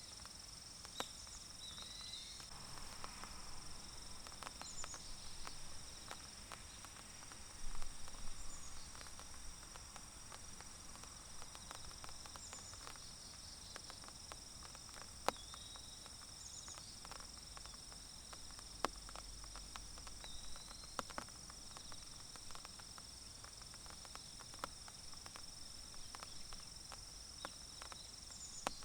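Insects shrilling steadily in a forest, with scattered raindrops from a light rain ticking and pattering on leaves and occasional short chirps.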